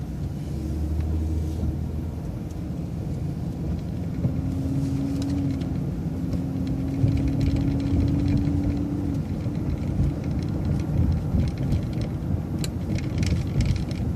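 City transit bus moving off and running along a street: steady low engine and road rumble, with a faint held tone from about four to nine seconds in and a few light ticks and rattles near the end.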